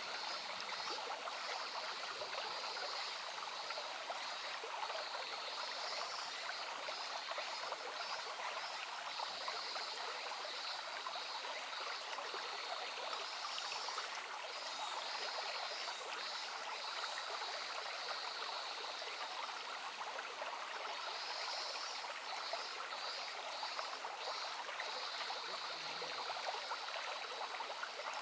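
A shallow brook babbling and trickling steadily, an even rushing of running water with no pauses.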